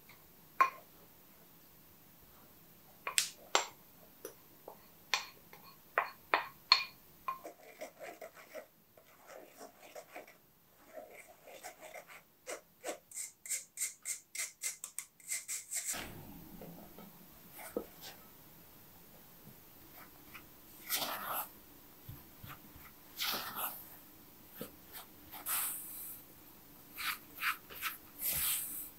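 A spoon clinking and scraping against a ceramic bowl, then a metal mesh sieve tapped in a quick even run of taps as flour and spices are sifted through it. From about halfway, a silicone spatula scrapes and mixes crumbly cookie dough in a ceramic bowl.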